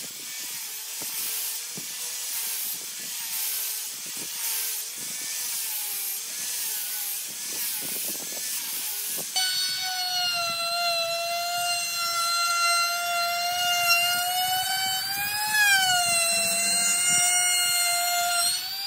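An angle grinder fitted with a sanding pad runs against the edge of a round wooden seat blank, a noisy hiss with a faint wavering motor tone. About halfway through, a trim router takes over, a loud steady high-pitched whine as it cuts the edge, its pitch bending briefly near the end.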